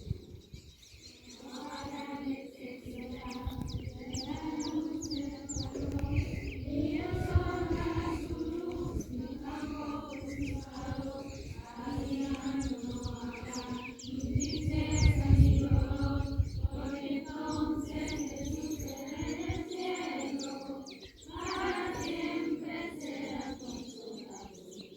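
Voices singing a slow hymn in long held notes, with small birds chirping in the background and a low rumble coming and going.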